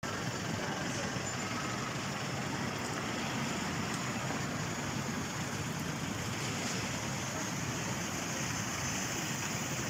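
Steady hum of road traffic: cars moving slowly through a busy car park.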